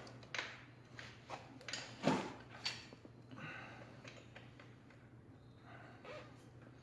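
Workshop handling noise: a handful of sharp knocks and clinks in the first three seconds, as the chain and parts are handled on the motorcycle. A faint steady low hum runs underneath.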